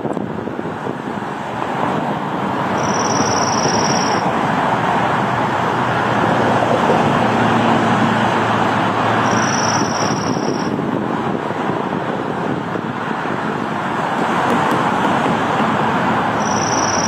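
Dark-eyed junco singing: a short, even, high trill on one pitch, given three times about six to seven seconds apart, over steady road traffic noise.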